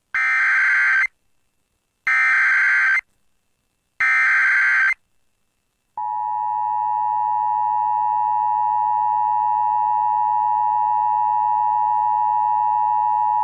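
Emergency Alert System signal: three one-second bursts of SAME header data, a harsh warbling screech about two seconds apart, encoding a flash flood warning. About six seconds in, the two-tone EAS attention signal starts and holds steady, announcing that an emergency alert message follows.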